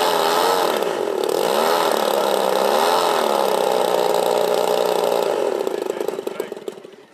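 Twin propeller engines of a 1:8 scale Dash 8 model airliner running on the ground at low power, the pitch slowly rising and falling. Near the end they are cut and wind down, slowing to a few separate clicks.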